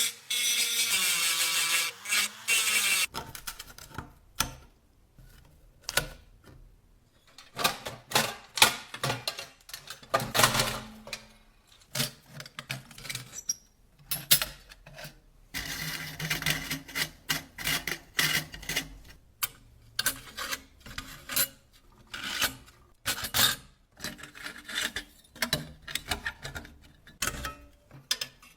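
A power tool runs for the first three seconds and stops. After that come irregular hand rubbing and scraping strokes on the cash register's parts, mixed with sharp clicks and knocks, with a longer stretch of steady scraping about halfway through.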